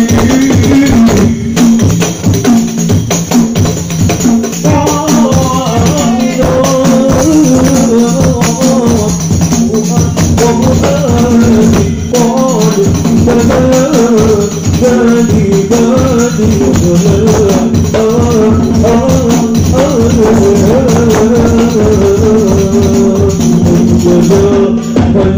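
Hadrah ensemble playing sholawat: a darbuka and rebana frame drums beating a dense, steady rhythm, with a man singing the melody into a microphone through an amplifier.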